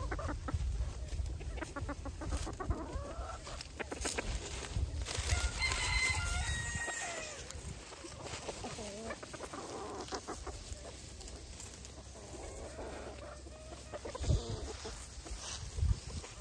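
Backyard chickens clucking, with a scatter of short calls and a higher call around the middle. A low rumble sits under the first half, and two short thumps come near the end.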